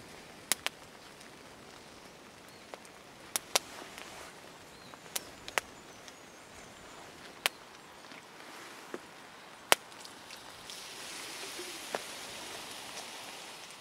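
Wood campfire crackling, with sharp single pops every second or so over a steady soft hiss; the hiss grows a little fuller near the end.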